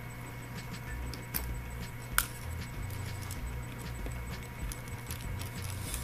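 Light clicks and clatter of a tablet and small tools being handled on a tabletop, with one sharp click about two seconds in, over a steady electrical hum.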